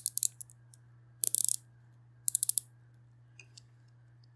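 A small ratchet gear from a wind-up kitchen timer, turned by hand in its one free direction, clicking over its pawl. There are three short runs of rapid clicks, then a couple of faint clicks. This one-way ratchet is how the timer's spring is wound.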